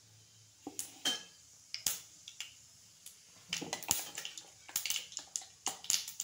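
Mustard and cumin seeds popping and crackling in hot oil in a hammered steel kadhai: a few sharp pops at first, coming thicker from about three and a half seconds in. This is the tempering (phodni), a sign that the oil is hot enough.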